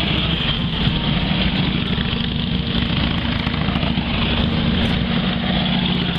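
Motorcycles riding past one after another, their engines running steadily as they go by.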